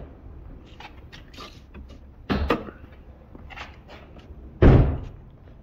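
Hood release of an EF Honda Civic being worked from the driver's side: scattered creaks and clicks, a clunk a little over two seconds in, then a loud thunk near the end as the hood latch pops.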